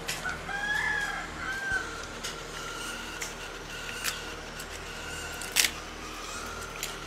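A rooster crows in the background, one arched call near the start. A dog crunches a crisp scrap of papad, with sharp crunches about four seconds in and, loudest, about five and a half seconds in.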